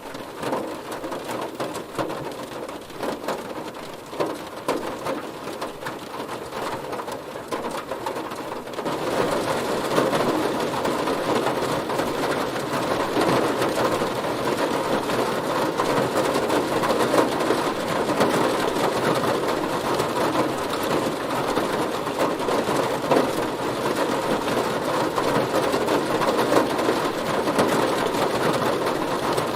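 Heavy rain hitting a car, a dense patter of drops on the body; about nine seconds in it becomes louder and heavier.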